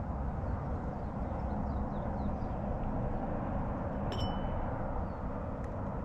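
SOTO gas canister stove burning with a steady roar, with a single metal clink about four seconds in.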